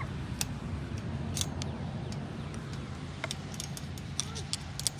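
Light, irregular clicks of a wire T-post fence clip being wrapped onto the post with a short flathead screwdriver, more of them near the end, over a low steady hum.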